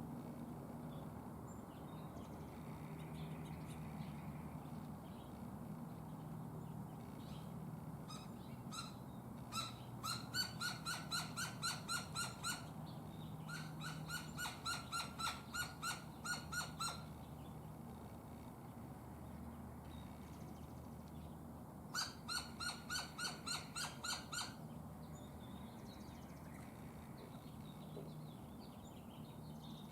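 A bird calling in bouts of rapid, evenly repeated notes, about four a second, each bout lasting two to three seconds, over a faint steady low hum.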